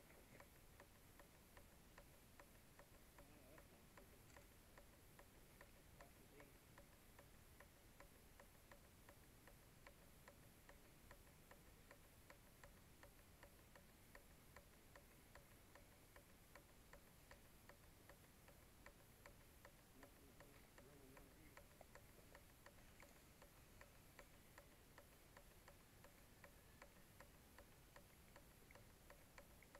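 Near silence, with a faint, regular ticking and a faint steady tone underneath.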